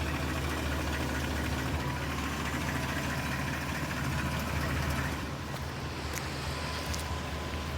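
BMW M62B44 4.4-litre V8 idling, heard from beside the right front wheel, with the knock that the owner takes for piston slap against the cylinder liner. It gets slightly quieter about five seconds in.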